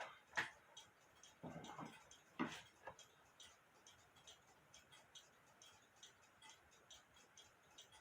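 A mechanical clock ticking faintly and steadily, about two ticks a second. A few louder knocks and scrapes come in the first three seconds.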